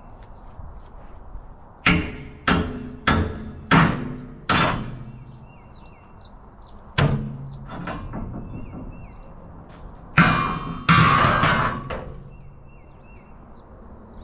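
Sledgehammer blows ringing on steel as a reinforcing plate is knocked off a rusted truck frame rail. Five hard clangs come in quick succession, then a single one a couple of seconds later. About ten seconds in, two louder clangs run into a longer metallic rattle.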